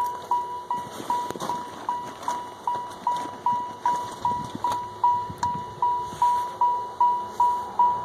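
A car's electronic warning chime dinging over and over, a single high note about two and a half times a second, each ding sharp and quickly fading. A few faint rustles and clicks sit under it.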